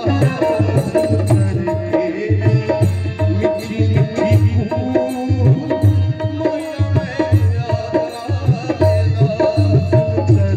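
Live folk song: a man singing to his own harmonium, with a hand drum keeping a steady beat underneath.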